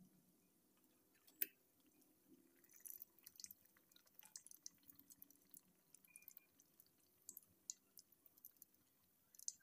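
Faint, scattered pops and crackles of dough balls deep-frying in hot oil, the sharpest about a second and a half in.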